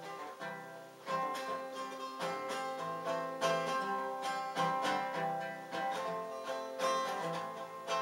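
Acoustic guitar playing an instrumental introduction: a steady pattern of picked notes, each ringing on into the next.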